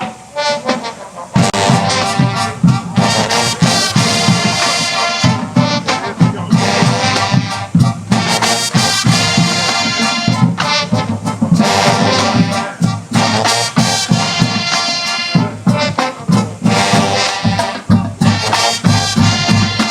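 High school marching band playing loudly, brass section over the drum line. The first second holds only a few drum strokes, then the horns come in.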